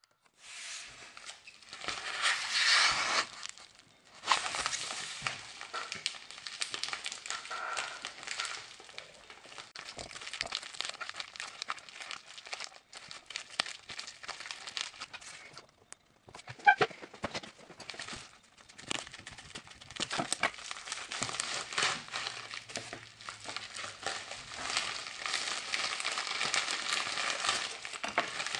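Plastic and paper packaging of fingerboard parts crinkling and rustling as it is handled and opened. It comes in bursts with small clicks and short pauses, and there is one sharp, brief squeak about two-thirds of the way through.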